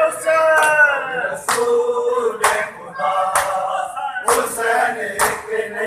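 A crowd of men chanting a lament together while beating their bare chests with their hands in matam, the slaps landing together about once a second.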